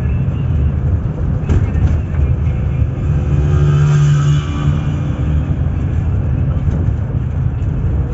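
Local bus running, heard from inside the cabin: a steady engine and road rumble. About three seconds in, a louder held tone sounds for about a second and a half.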